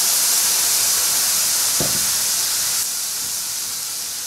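Beer poured into a hot sauté pan, hissing and sizzling loudly as it deglazes and boils off in a burst of steam. The hiss drops down a step about three quarters of the way through and carries on more quietly, with a light tap about two seconds in.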